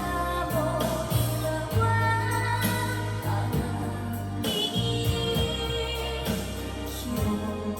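A recorded song with singing and a bass line, played back through B&W CM6 S2 loudspeakers driven by a Nakamichi Amplifier 2 from a Nakamichi CD Player 2.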